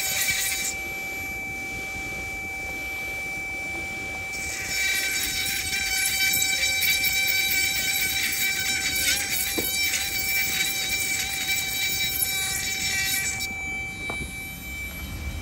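Handheld rotary tool's motor running with a steady whine while its bit grinds into a carnelian agate bead, giving a harsh high-pitched scraping squeal. The grinding comes in two spells, briefly at the start and again from about four seconds in until near the end, with the motor running alone between them and stopping at the very end.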